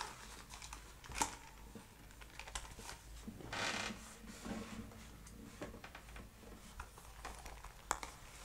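Faint scattered clicks and taps, with a short rustle about three and a half seconds in, like small handling noises at a desk.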